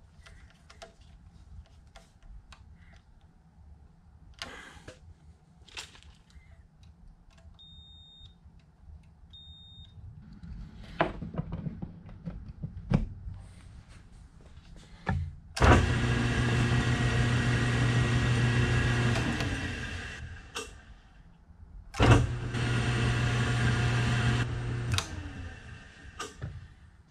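Electric motor of a 1941 South Bend 13-inch lathe started through its newly wired motor control switch, running with a steady hum for about five seconds and winding down, then started again in reverse for about three seconds and winding down. Before the first run, a few sharp clicks and two short high beeps.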